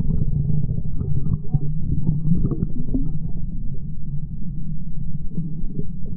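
Muffled underwater sound picked up by a submerged camera: a steady low rumble of moving water with scattered small clicks and knocks.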